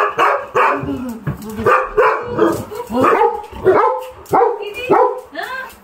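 Dogs barking over and over, about two barks a second, in an excited greeting of their returning owner.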